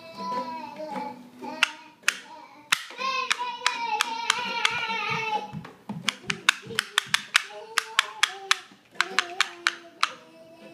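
A person singing a tune, with hand claps coming in about halfway through at roughly four a second, keeping time.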